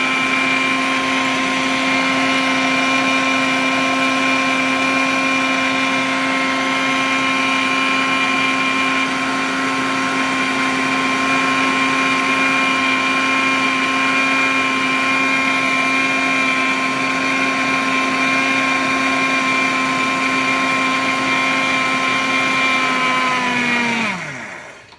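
Preethi Zodiac 2.0 1000-watt mixer grinder running at a steady high speed, grinding rice to flour in its stainless steel jar, with a steady whine. Near the end it is switched off and the motor winds down, its pitch falling away.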